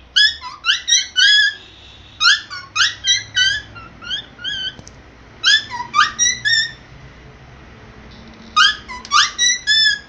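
Cockatiel whistling its song in short phrases of three to five notes that slide up and down, with brief pauses between phrases. The bird is still learning the song.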